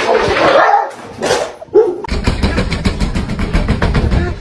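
A dog barking amid loud, noisy sound. About two seconds in, a steady low rumble with rapid clicking takes over.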